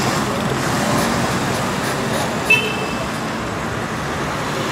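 City street traffic at night: a steady wash of car engines and tyres on the road. About halfway through, a short toot of a car horn.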